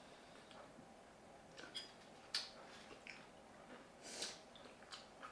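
Quiet sounds of eating at a table, near silence: a few faint clicks, one sharp click a little over two seconds in, and a brief scratchy noise about four seconds in.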